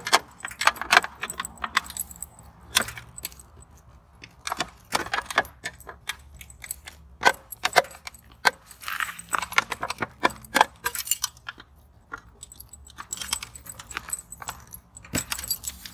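Clicking, rattling and metallic jingling as the removable side panel of a Honda motorcycle is worked back onto its clips, with keys by the panel jangling; many short sharp strikes with brief pauses.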